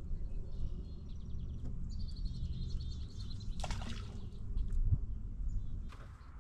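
Small songbirds singing, with runs of quick repeated high chirps in the first half, over a steady low rumble of wind on the microphone; a short rustle comes a little past the middle.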